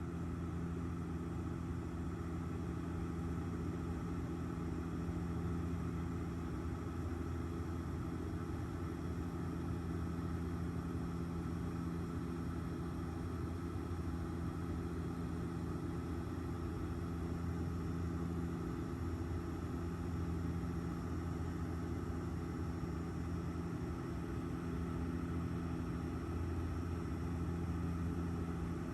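Airliner cabin noise in flight: the steady drone of the engines and airflow, with a low hum that holds its pitch throughout.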